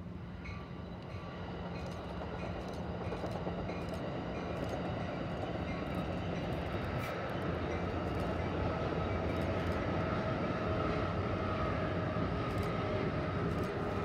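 Amtrak Pacific Surfliner passenger train crossing a long wooden trestle bridge: a steady rolling rumble that grows slowly louder as the train comes closer. From about halfway a steady hum joins in.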